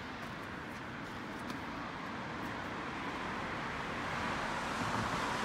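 Road traffic noise: a steady hiss of car tyres on the street, growing louder in the second half as a vehicle approaches.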